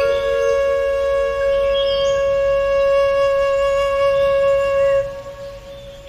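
Meditation music: a flute-like wind instrument holds one long, steady note, which fades away about five seconds in.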